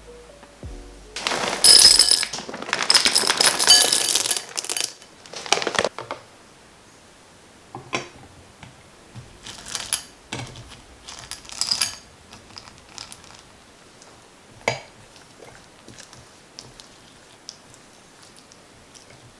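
Chocolate chips poured into a glass bowl with a loud, dense rattle for a few seconds. Then the glass bowl clinks against the metal bowl of hot water a few times, with one sharp knock, and a silicone spatula stirs the melting chips faintly near the end.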